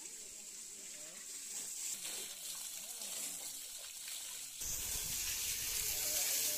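Water spraying with a steady hiss, as when washing down a tractor. About two-thirds of the way through it abruptly becomes louder and fuller.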